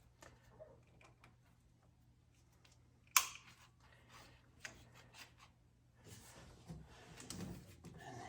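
Faint handling noise of wiring and connectors being routed and fitted: scattered small clicks and rustles, with one sharp click about three seconds in.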